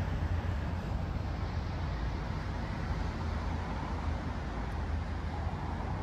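Steady outdoor city ambience: a low, even rumble like distant traffic, with no distinct events.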